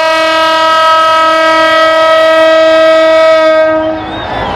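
Diesel locomotive's horn sounding one long, steady blast on a single note, which stops a little less than four seconds in. Rougher sounds, like voices, follow it.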